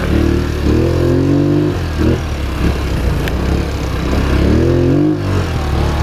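Polaris Sportsman XP 1000 S ATV's twin-cylinder engine running under way, its pitch rising twice as the throttle opens and dropping off briefly about five seconds in.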